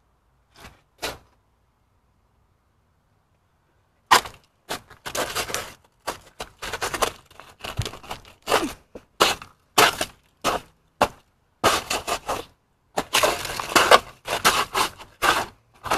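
Ice being chipped and broken up by hand: a fast, irregular run of sharp cracks and scrapes that starts about four seconds in, after two faint clicks and a short quiet spell.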